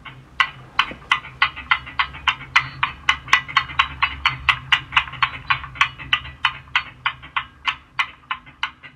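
Slowed-down recording of a bicycle chain played from separate speakers as two out-of-sync clicking sounds, about four clicks a second together, over a low hum.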